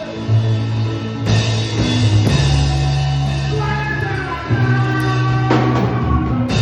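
Live gospel praise band playing: a bass line moving under guitar and keyboard melody, with a drum kit and cymbal crashes about a second in and near the end.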